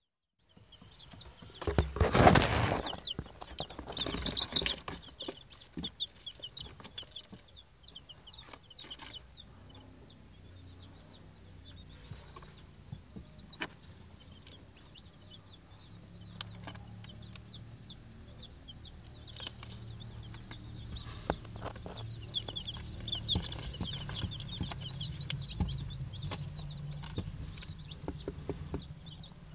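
Young Silver Laced Wyandotte chicks peeping, many short high chirps all through. There is a loud rustling burst about two seconds in and a smaller one near four seconds, and a low steady hum comes up about halfway through.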